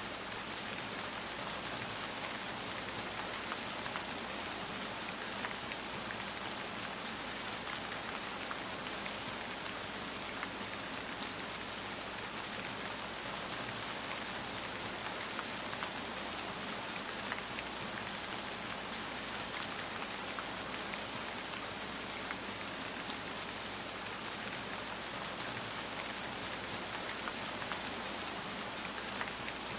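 Steady rainfall, an even hiss with many small scattered drop ticks and no change in strength.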